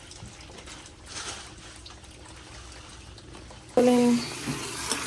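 Water running into a bucket, trickling and pouring. About four seconds in the water turns suddenly louder, with a brief voice.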